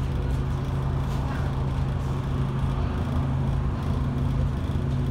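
Scania double-decker bus heard from inside the passenger saloon while under way: a steady engine drone with a constant hum and road noise, the engine note not rising or falling.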